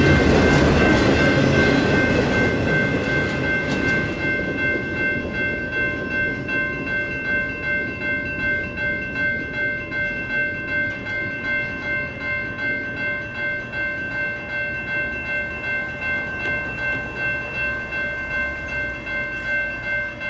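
Electronic railroad-crossing bells (NEG E-Bells) ringing steadily at about two strokes a second, over the wheel and rail noise of a passing intermodal freight train. The train noise is loud at first and fades after about four seconds, as the last cars clear the crossing. The bells cut off at the very end.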